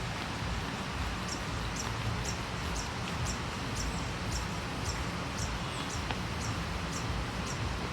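A small bird chirping repeatedly: short, high notes about twice a second at slightly uneven spacing, over a steady background hiss and low rumble.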